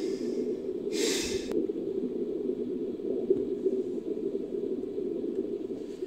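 Made-up dugong call assembled from manatee and Desmostylus recordings: a steady, rough low drone with two short breathy hisses, one at the start and one about a second in; the drone cuts off suddenly at the end.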